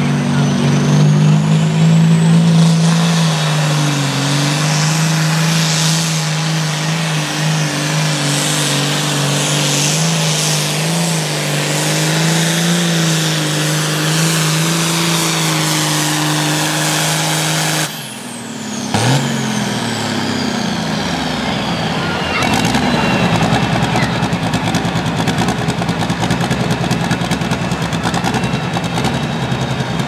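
Turbocharged diesel engine of a John Deere Altered Farm pulling tractor running loud at full throttle, dragging the sled in a steady, slightly wavering drone. About two-thirds of the way through the throttle is cut and the engine drops off abruptly, with a high turbo whine falling away over a few seconds.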